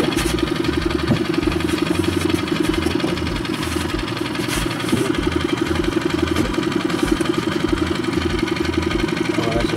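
Outboard motor on an inflatable boat running steadily, a constant pulsing engine drone.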